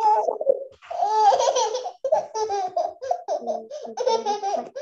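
A child laughing in short, choppy, high-pitched bursts, heard over a video-call line.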